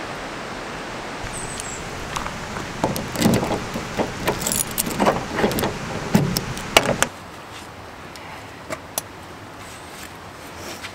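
A bunch of keys jangling and a key working the lock of a Ford van's driver door: a cluster of clicks, knocks and rattles in the middle seconds, over a steady hiss that drops away about seven seconds in. Two light clicks follow shortly after.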